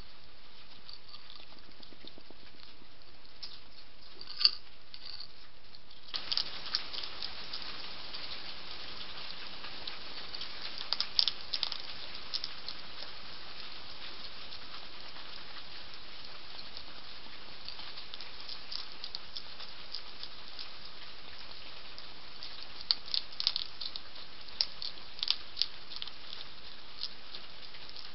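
Hedgehog crunching dry food pellets from a dish: scattered sharp crunches and clicks in short clusters. A steady hiss of rain comes in abruptly about six seconds in.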